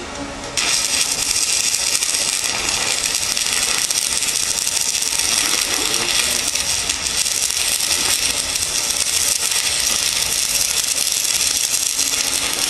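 Stick (arc) welder striking an arc about half a second in, then a loud, steady crackling hiss as a bead is run on a steel push bar.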